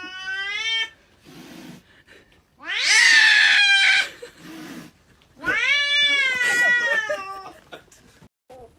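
A cat yowling in three long, drawn-out calls; the loudest, about three seconds in, rises in pitch at its start.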